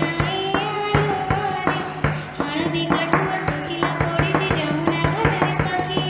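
Devotional Krishna bhajan: a child's voice singing a wavering melody over a steady low drone and regular drum strokes.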